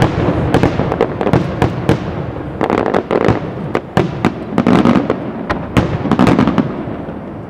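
Aerial firework shells bursting in quick succession, a dense run of sharp bangs about three a second, which thins out and grows quieter near the end.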